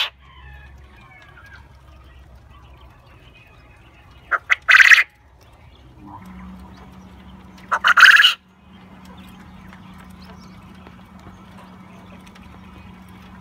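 Male coturnix quail crowing twice, about four and a half and eight seconds in. Each crow is two quick short notes followed by a longer one.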